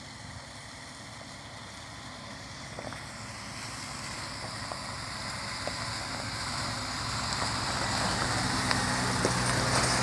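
MAN flatbed truck's diesel engine approaching at low speed on a gravel road, growing steadily louder until it draws level near the end, with tyre noise and a few small knocks.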